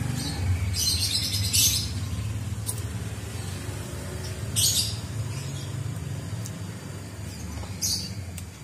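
Small birds chirping in short, high bursts, four times, over a low steady hum.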